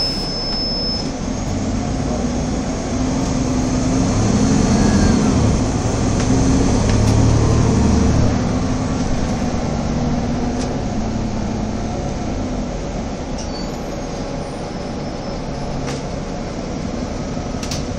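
Interior ride noise of a Nova Bus LFS articulated city bus under way: steady engine drone and road rumble, swelling louder in the middle and then easing off.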